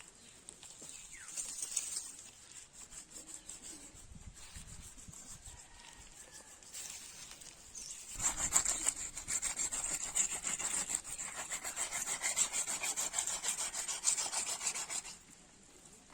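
Rapid repeated scraping strokes, many a second, from about eight seconds in until about a second before the end, with a shorter scrape near two seconds in.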